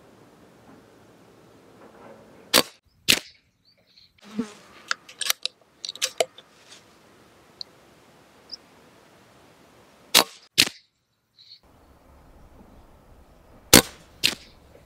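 Brocock Bantam Sniper HR regulated .22 pre-charged air rifle firing through its shroud: six sharp cracks in three pairs about half a second apart, with softer clicks in between. The reports are not dead quiet despite the shroud.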